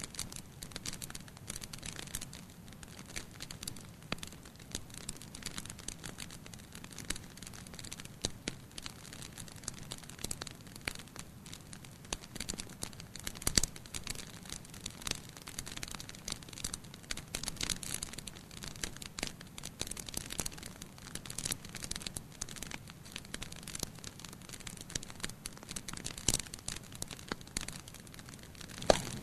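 Wood fire burning in a fireplace, crackling steadily with many small irregular snaps over a low rushing of the flames, and a few louder pops, the loudest about halfway through.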